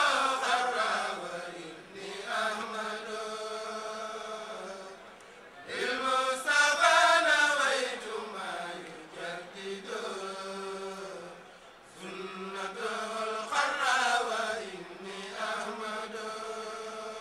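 Men's voices chanting a devotional chant in long drawn-out phrases a few seconds each, every phrase starting loud and sliding down in pitch as it fades.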